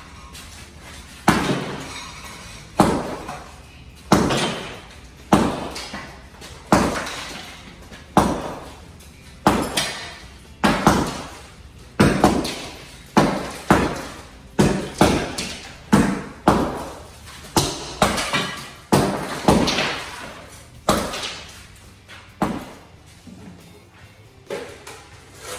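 Sledgehammer blows breaking up old floor tiling, a sharp crack with clinking shards about once a second.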